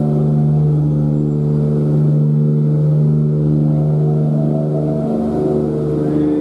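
Steady low humming drone, with sustained higher tones above it that change every second or two.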